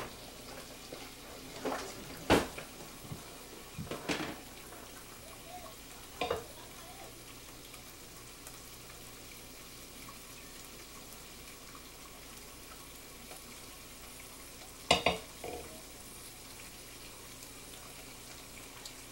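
Turkey bacon sizzling in a frying pan, a steady hiss, with about five sharp clacks of a spatula and pans: four in the first six seconds and one loud one near the end.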